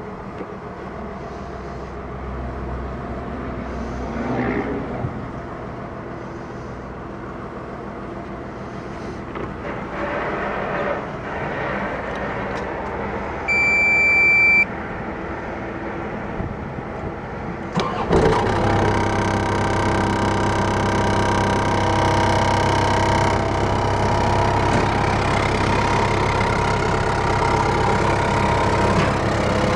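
Caterpillar 304E CR mini excavator: a single steady electronic beep about a second long from the cab's warning buzzer at key-on, then about 18 seconds in the diesel engine cranks, fires and settles into a steady idle.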